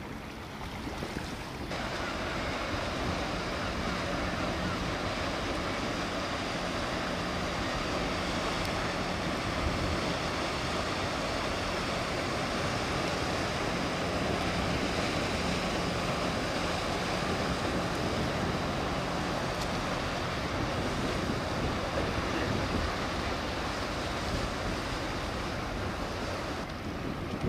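Pilot boat's engine running with a steady low hum as the boat passes at speed, over a constant rush of water from its bow wave and wake.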